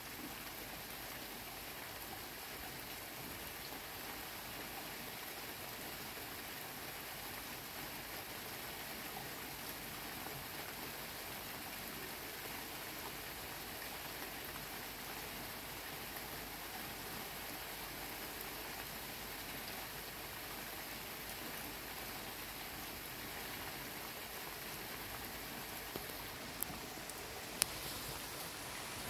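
Heavy rain falling steadily, an even hiss of rain with no thunder. Two sharp clicks near the end.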